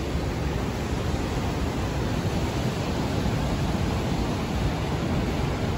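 Ocean surf breaking, heard as a steady rushing noise mixed with wind buffeting the microphone.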